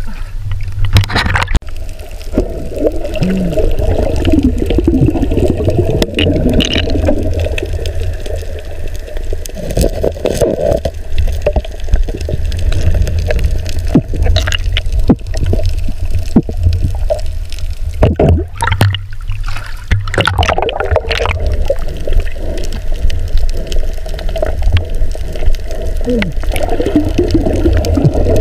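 Water gurgling and sloshing around a camera held underwater, muffled with a constant low rumble and scattered knocks.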